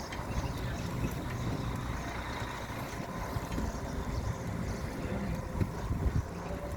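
Road traffic running on a rain-soaked, poorly drained street: a steady low rumble of vehicle engines and wet tyres, with a few louder knocks near the end.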